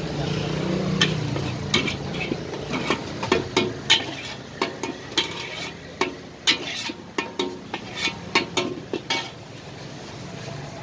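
A metal spatula scraping and clanking against a steel wok as fried rice is scooped out, in an irregular run of sharp strokes that dies away shortly before the end.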